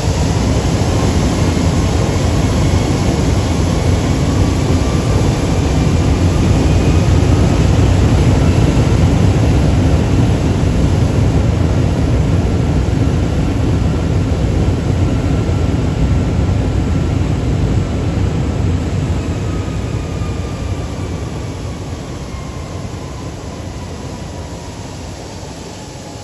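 Boeing 757-200's Rolls-Royce RB211 turbofan on a high-power ground run, a loud jet roar with a deep rumble and a thin whine. Over the last several seconds the roar dies away and the whine falls in pitch.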